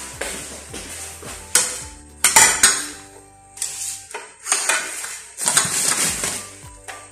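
Ceramic plates set down and shifted on a granite countertop, with several sharp clinks of china on stone and plate on plate in two clusters.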